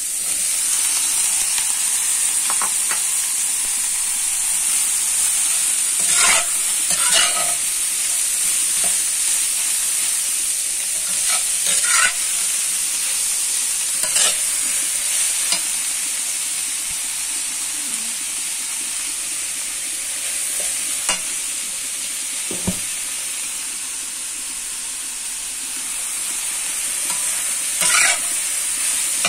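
Carrot and garlic chives stir-frying in a hot wok: a steady sizzle, broken by several sharp scrapes and clacks of the metal spatula against the pan as the vegetables are tossed.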